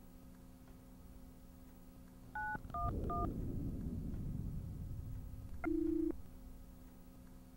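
Touch-tone telephone dialling 9-1-1: three quick keypad beeps about two and a half seconds in. A low rumbling noise follows, and one short burst of ringing tone comes on the line near the end.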